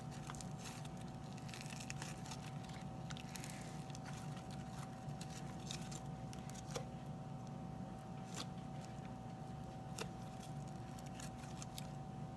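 Slime being handled, with scattered faint sticky clicks and pops over a steady low hum of room noise.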